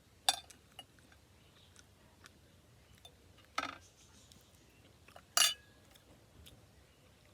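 Tableware clinking three times while eating: light knocks of a utensil or cup against a dish, each with a short ring.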